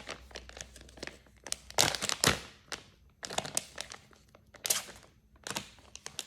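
Plastic packaging crinkling and rustling as it is handled, in irregular bursts with sharp crackles, loudest about two seconds in.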